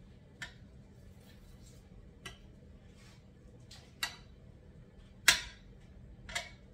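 Metal kitchen tongs clicking and knocking against a baking dish as chicken legs are turned over: five short, sharp clicks a second or two apart, the loudest about five seconds in.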